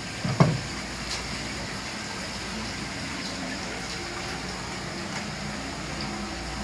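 A single dull knock on a wooden cutting board about half a second in, over steady background noise in the kitchen.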